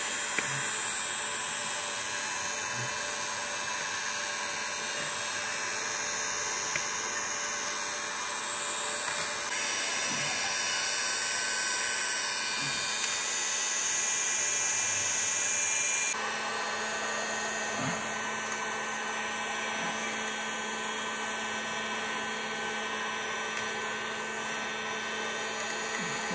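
Handheld electric heat gun running steadily, its fan giving a high whine over a rush of blown air as it heats the melted plastic on the motor shaft. About two-thirds of the way in, the high part of the whine drops away and a lower hum carries on.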